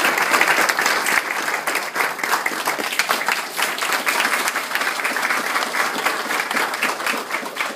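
Crowd of people applauding, many hands clapping steadily.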